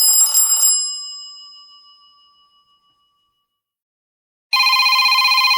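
Android phone notification and ringtone sounds played back: a bright bell-like chime rings out and fades away over about two seconds, then after a pause a fluttering electronic tone starts about four and a half seconds in.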